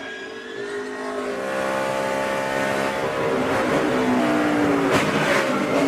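NASCAR stock car's V8 engine running hard, its pitch climbing about a second in, holding steady, then dropping lower about three and a half seconds in before rising again near the end.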